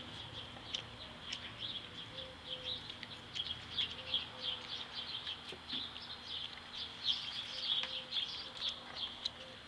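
Small birds chirping, many short high chirps in quick irregular succession.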